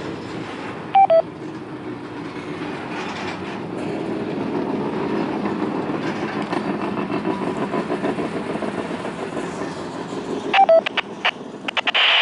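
A train rolling steadily past, its wheels clicking over the rails. Twice, about a second in and again near the end, a short two-note electronic beep sounds, stepping down in pitch. A quick run of clicks and a brief hiss come just before the sound cuts off.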